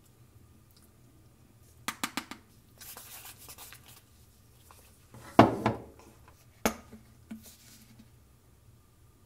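Chopsticks clicking and scraping against a small bowl while kimchi and natto are mixed in it, with one louder knock about five seconds in as something is set down.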